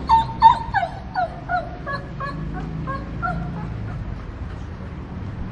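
A dog whining: a quick run of short, high whimpers, about three a second, that step down in pitch. They are loudest in the first second and die away after about three and a half seconds.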